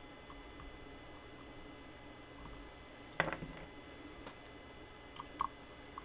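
Small metallic clicks and clinks of lock-picking tools working in a metal ZX5J lock: faint scattered ticks, a louder cluster of ringing clinks about three seconds in, and two sharper clicks near the end.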